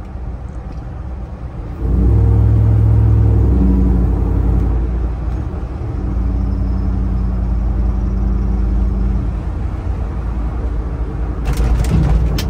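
Swapped-in Ford Coyote 5.0 L V8 and its exhaust heard from inside a second-generation Bronco's cab. The engine jumps sharply louder about two seconds in as the throttle opens, holds a steady deep drone, and eases off near the end, where a few sharp knocks come as the truck goes over a bump.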